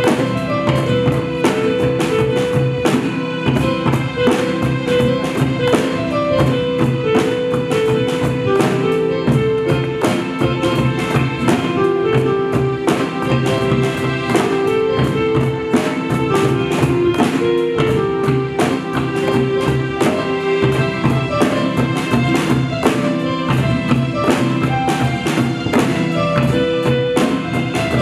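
Live instrumental music from a small ensemble of congas, cajon, hand drum, drum kit and acoustic guitar. The drums keep a busy, steady beat under a held, stepping melody line.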